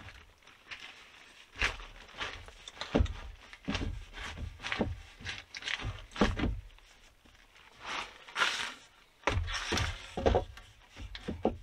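Wooden poles knocking and thudding irregularly as they are shifted and set across the top of a log wall, with a short rustle about eight seconds in.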